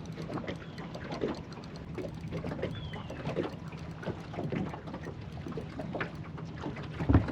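Small water slaps and knocks against a boat hull, an irregular patter over a steady low hum, with a heavier low thump near the end.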